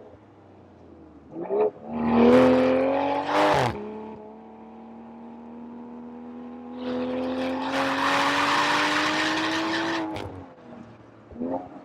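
BMW M340i's turbocharged 3.0-litre inline-six under hard acceleration on track. It pulls loudly and rises in pitch, drops off sharply, then runs through a long, slowly rising pull. Near the end it drops away again and gives a short rev blip.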